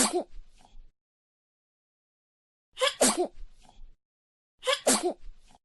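A person sneezing three times, each an "ah-choo" with a short lead-in and a sharp burst, about two seconds apart.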